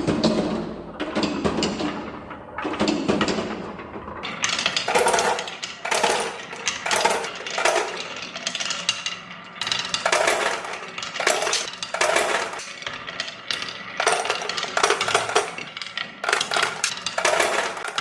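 Marbles rolling and clattering down a HABA marble run: dense rattling clicks in repeated surges, one after another, with brief lulls between them.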